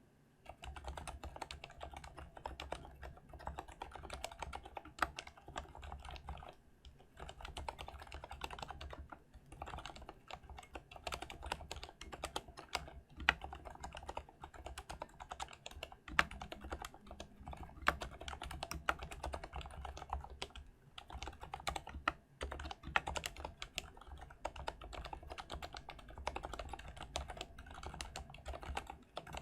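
Fast, continuous typing on an Mstone Groove T SF mechanical keyboard with Cherry MX Silent Red linear switches, with a few short pauses.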